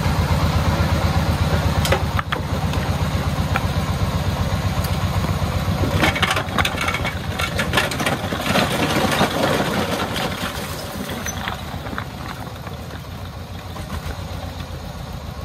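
Homemade three-wheeled công nông dump truck's single-cylinder diesel engine running with a steady fast beat while its bed tips up. From about six seconds in, its load of concrete blocks slides off and clatters onto the ground for several seconds, and the sound then eases off.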